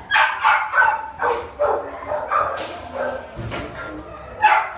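Dog barking: a quick run of short barks in the first second and a half, then scattered barks, with a loud one near the end.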